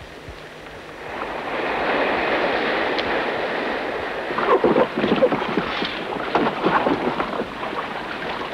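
Sea water washing and splashing against rocks: a hiss of surf that swells about a second in, with irregular splashes and sloshes from about halfway through.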